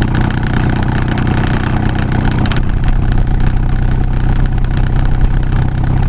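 Car engine running steadily with tyre and road noise while driving, heard from inside the cabin.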